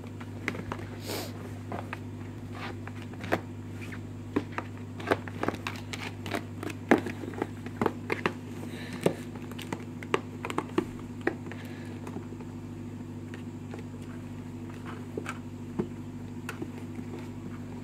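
Kittens clawing and batting at a cardboard shoebox: irregular sharp taps, knocks and scrapes, thickest in the middle stretch and sparser near the end, over a steady low hum.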